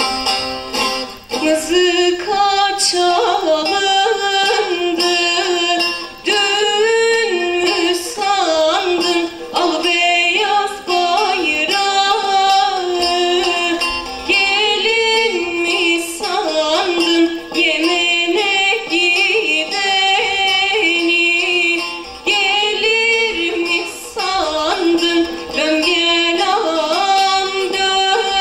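A young woman singing a slow Turkish folk song solo into a microphone, her melody heavily ornamented with wavering, bending turns.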